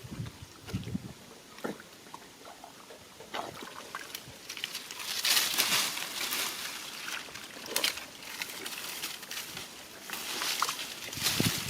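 Shallow water sloshing and splashing as it is disturbed, with scattered small knocks. Louder splashing comes about five seconds in and again near the end.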